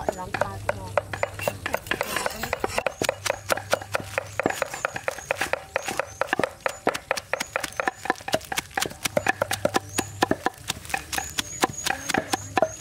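Steel cleaver chopping fresh green leaves on a wooden chopping block: quick, uneven knocks of the blade hitting the wood, several a second.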